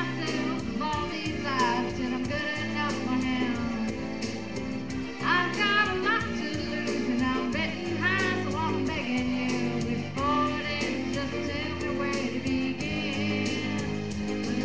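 Music: a song with a singing voice over held bass notes.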